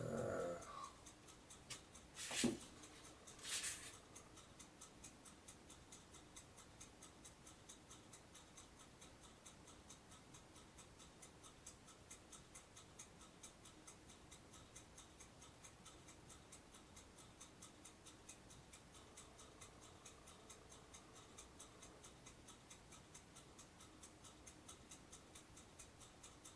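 Near silence in a small room: two short clicks of handling, about two and a half and three and a half seconds in, as PC power cables and connectors are handled, over a faint, even ticking.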